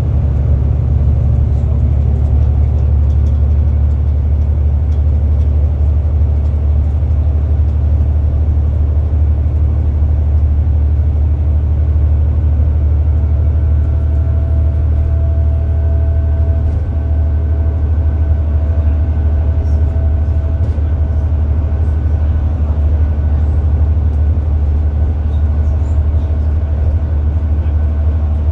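Alexander Dennis Enviro400 MMC double-decker bus running at speed, heard from inside the passenger saloon: a steady, loud low engine and road drone, with a faint thin whine that comes in about twelve seconds in.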